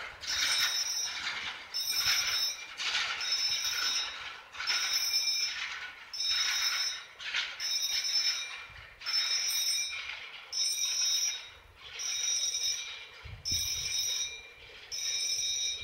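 Level-crossing warning bell ringing in regular pulses about once a second, each pulse a ringing of a few high pitches. Under it, the rolling noise of the last freight wagons fades away over the first half.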